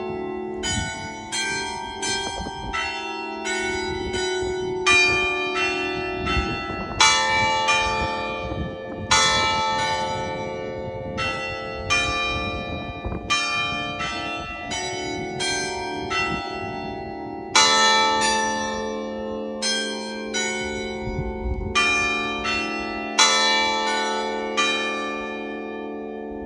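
Church bells ringing a run of struck notes at changing pitches, about two a second, in phrases with short pauses between them. Each strike rings on and overlaps the next.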